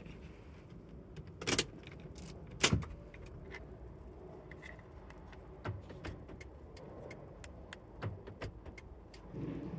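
Lexus remote-key fobs handled in the hand: two loud sharp clicks about a second and a half and just under three seconds in, then several lighter clicks and taps.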